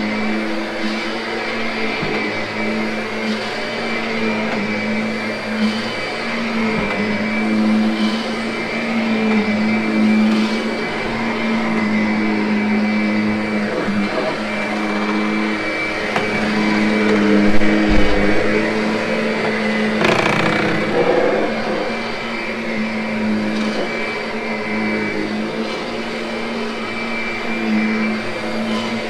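Kirby upright vacuum cleaner running steadily while vacuuming and grooming a carpet: a steady hum with a high whine over it. A brief low thump comes a little past the halfway point.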